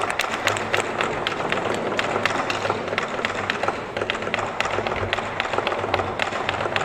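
Rapid, irregular light clicks and taps, many a second, over a faint low hum.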